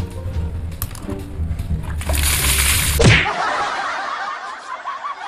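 Background music with a steady bass beat, cut about three seconds in by a falling swoosh; then a bucket of water poured over a person, splashing and spattering.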